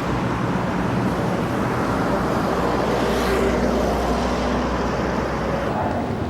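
Steady engine rumble under general outdoor noise, swelling slightly about halfway through.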